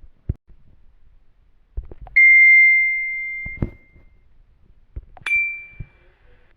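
Two bell-like dings. The first comes about two seconds in and rings out for over a second; the second, slightly higher and shorter, comes about five seconds in. Faint clicks fall between them.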